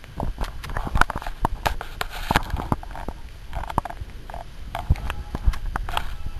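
Newborn puppies nursing: a busy run of small wet clicks and smacks from suckling, with a few short squeaks in the second half.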